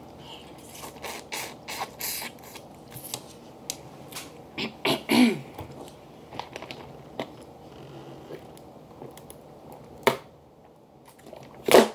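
Close-up eating sounds with small clicks, then the plastic screw cap of a water bottle twisted off with a run of ratcheting clicks. Two louder sharp sounds come near the end as the bottle is drunk from.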